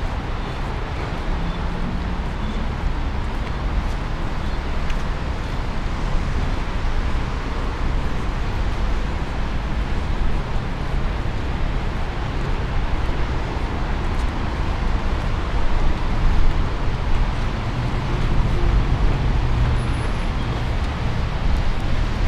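Steady road traffic noise: a continuous rumble of passing cars with no sharp events.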